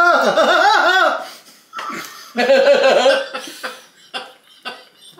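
A small group of people laughing: a loud, drawn-out laugh in the first second, another burst of laughter about two and a half seconds in, then quieter chuckles and snickers.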